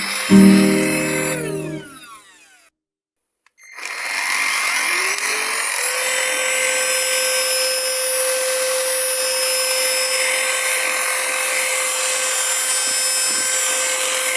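Background music ends, a short silence follows, then the Rauberg RVC 420 upright vacuum cleaner's motor starts. Its whine rises in pitch over about two seconds, then it runs steadily with a rushing of air.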